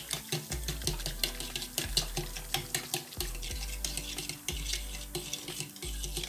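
A metal fork stirs a thin yeast-and-water batter in a plastic bowl, clicking and scraping against the bowl in a quick, even rhythm of about four to five strokes a second.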